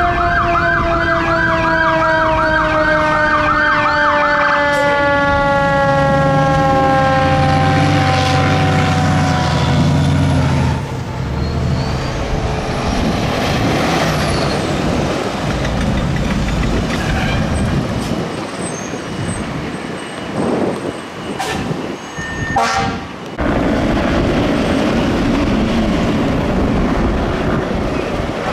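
Fire engine sirens passing: a fast electronic yelp siren for the first few seconds, over siren tones that slide slowly down in pitch. From about ten seconds in come heavy fire-truck engine and road noise, with a few sharp knocks.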